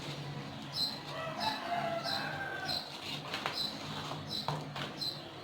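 Birds calling in the background: a longer call with several pitches lasting over a second, from about one to three seconds in, and a short high chirp repeating about every half second.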